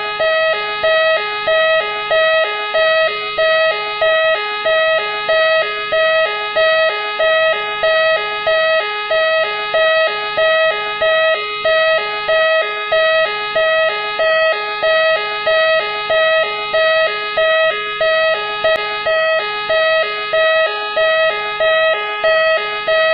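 Machine X police car siren sounding continuously: a fast wavering wail over a steady tone that pulses on and off about every three-quarters of a second.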